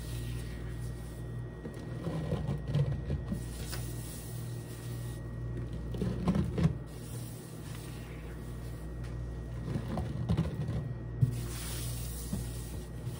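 Close-up handling sounds of cleaning-powder play: three bursts of crackling and rustling, with a sharp click near the end, over a steady low hum.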